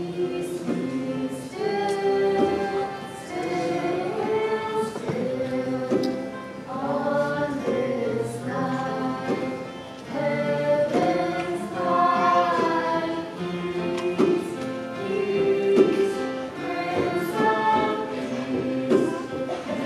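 A choir singing, moving through phrases of held notes, with a brief pause between phrases about ten seconds in.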